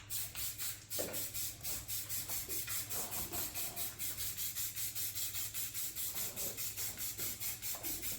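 Aerosol spray-paint can in use, giving a hiss that pulses evenly about five times a second.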